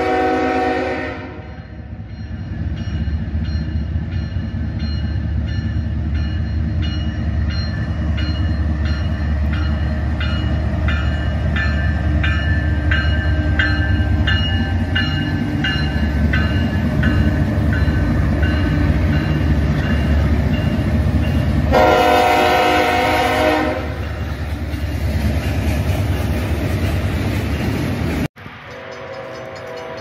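A Norfolk Southern GE ES44AC freight locomotive's horn finishes a blast just after the start, then the train rumbles loudly past with a bell ringing about twice a second. The horn sounds again for about two seconds past the twenty-second mark. Near the end the sound cuts abruptly to a fainter horn of another train.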